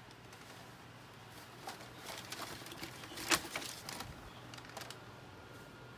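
Faint rustling and light taps from a sneaker box and its packaging being handled, with one sharper tap about three seconds in.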